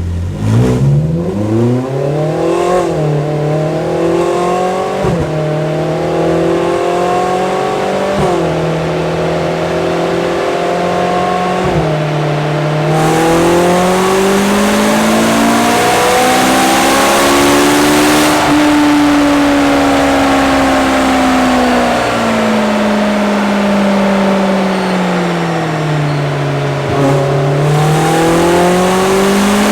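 Ferrari 458 Challenge's 4.5-litre V8 running on a chassis dyno, its pitch climbing and falling in long smooth sweeps, with a few sharp dips in the first half. A hiss grows louder from about halfway.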